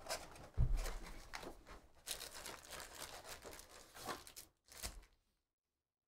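A trading-card hobby box being opened and its foil-wrapped packs pulled out and stacked: cardboard tearing and pack wrappers crinkling in a run of rustles, with a dull thump about half a second in.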